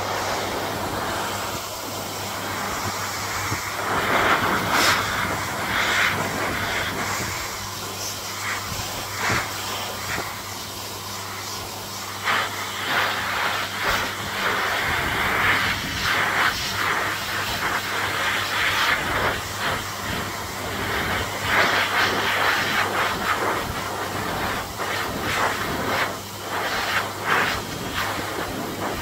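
High-velocity dog dryer blowing a steady rush of air through its hose and nozzle into a dog's coat. The airflow surges and eases every few seconds as the nozzle moves over the legs, over a low steady motor hum.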